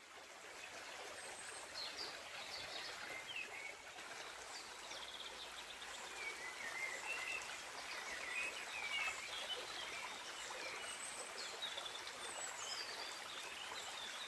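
A shallow creek running over rocks, fading in at the start, with small birds chirping now and then over it.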